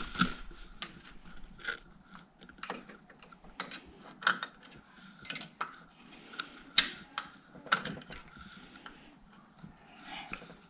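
Hand tools clicking and clinking against metal as the top end of a 110cc pit bike engine is taken apart: irregular light clicks and knocks, a couple of sharper ones about four and seven seconds in.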